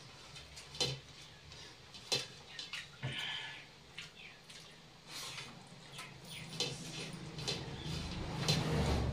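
Eating sounds: fingers working rice and chicken on steel plates, with chewing and sharp lip-smacking clicks every second or so. A low rumble builds near the end.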